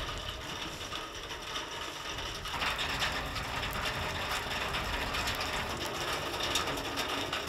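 Rapid mechanical clicking with a ratchet-like texture, growing louder about two and a half seconds in.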